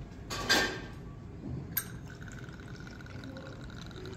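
Aperol being measured from its bottle into a metal jigger: a brief clatter about half a second in and a sharp click near two seconds, then liquid running in a thin steady stream.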